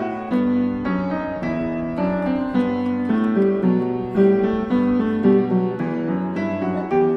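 Background piano music: a steady run of piano notes with chords underneath.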